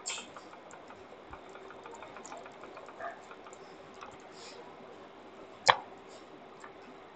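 Faint scattered clicks and taps at a computer, with one sharp click about five and a half seconds in, over a faint steady hum.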